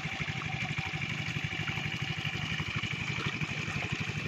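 A small engine running steadily at an even speed, a fast regular pulsing that does not change.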